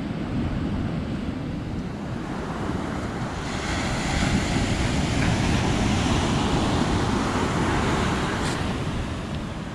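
Pacific Ocean surf breaking and washing up a sandy beach: a steady wash of noise that swells louder from about three seconds in and eases off near the end.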